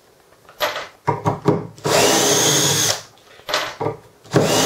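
Flex cordless drill driver driving woodscrews into softwood timber: two runs of about a second each, the motor whine rising as it spins up and then holding steady, the second starting near the end. Short taps and clicks come in between.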